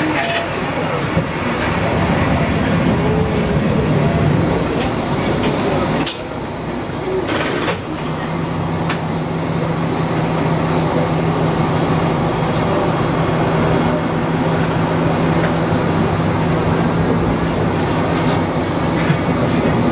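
Diesel railcar running along a rural branch line: a steady engine drone under rail and running noise, with two sharp knocks about six and seven and a half seconds in.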